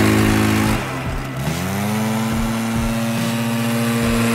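Gas backpack leaf blower running at high throttle. The engine eases off about a second in, then revs back up and holds a steady, high whine.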